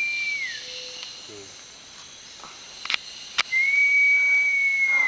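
A long, steady, high whistle, held about a second and a half and sliding down at its end, sounds twice: once at the start and again from about three and a half seconds in. Two sharp clicks come just before the second whistle.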